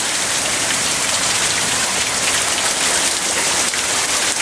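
Heavy squall-line rain pouring down steadily, a dense hiss of drops.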